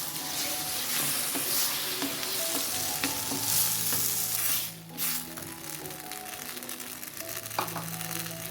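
Food frying, sizzling steadily, with a melody of background music under it.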